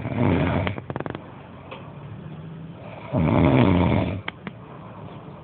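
A man snoring loudly: two long snores about three seconds apart, the first one ending in a quick rattle.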